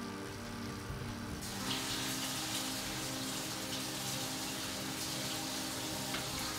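Washed spinach sizzling in olive oil in a hot frying pan: a steady crackling hiss that comes in about a second and a half in. Soft background music with held notes plays underneath.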